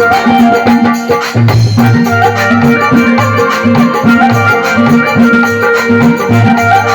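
Instrumental interlude of a Rajasthani devotional bhajan: a sustained keyboard melody over a steady, evenly repeating drum beat.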